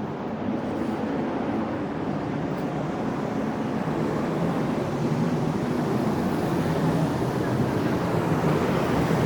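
Steady hiss of city traffic on a wet street, tyres on rain-soaked pavement, slowly growing louder toward the end as a vehicle approaches.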